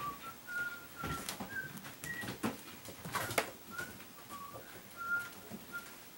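Kittens scampering and pouncing on a hard floor, with quick taps and knocks of their paws about 1, 2.5 and 3.3 s in. Over them runs a series of short, whistle-like chirps that jump between pitches.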